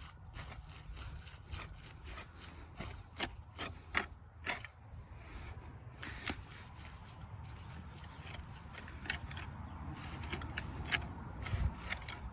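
Footsteps crunching and brushing through pasture grass: short irregular clicks, a few a second, over a low steady rumble.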